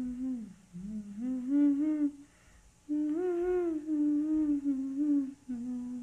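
A voice humming a tune in held, gently gliding notes, in about four phrases with short breaks between them; the last note is held level.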